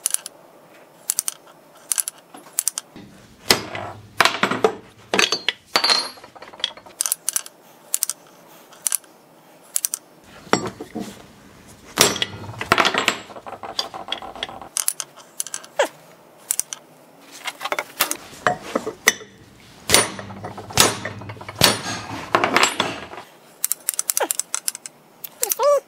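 Repeated sharp metal knocks and clinks: a hammer striking a pressed Yamaha 701 crankshaft to true its flywheels, with lighter clicks as the crank is handled. A low steady hum comes and goes underneath in three stretches.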